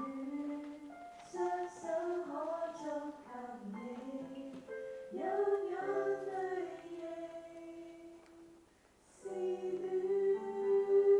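Music: a slow song sung by a voice over sustained instrumental accompaniment. About nine seconds in, the music drops away briefly, then louder held chords come back in.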